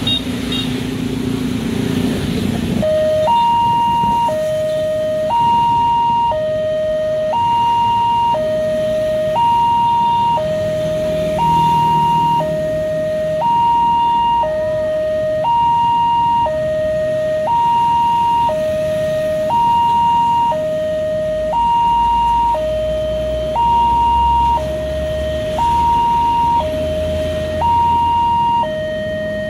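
Railway level-crossing warning alarm starting about three seconds in: an electronic two-tone signal that alternates evenly between a lower and a higher tone, each held about a second, warning that a train is approaching and the barriers are closing. A low engine rumble from waiting road traffic rises under it near the end.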